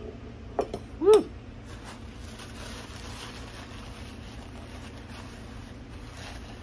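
Two or three light clicks of eating, then a short hummed sound rising and falling in pitch about a second in. After that, faint rustling of a cloth rubbed over the face to wipe off sweat from the spicy food.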